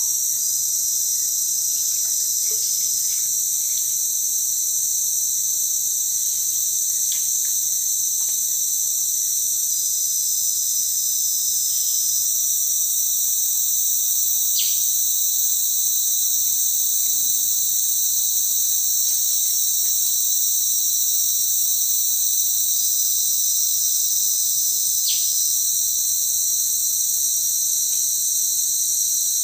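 Dense, steady chorus of rainforest insects, a high-pitched ringing in several layers that never lets up. A few faint clicks and three short high tones come and go over it.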